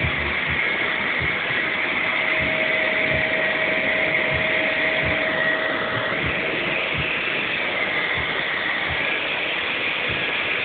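Vacuum cleaner running steadily, with scattered low bumps.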